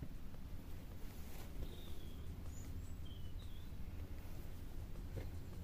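Quiet background with a steady low hum, a few faint short high chirps in the first half, and a couple of soft ticks.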